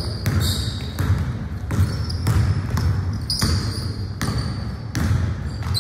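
Basketball dribbled on a hardwood gym court: steady bounces a little more than one a second.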